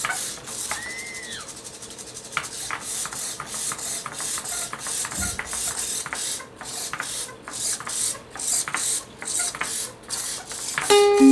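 Small hexapod walking robot's gear motor and legs running, a rasping, scraping rhythm of about two strokes a second. About a second in comes a short electronic tone that rises and falls.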